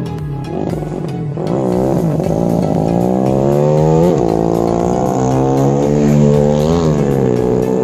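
Small-capacity road-race motorcycle engines revving around a track, their pitch rising and falling as the riders work the throttle. Bikes pass by about 4 s and about 7 s in, each with a quick rise and drop in pitch.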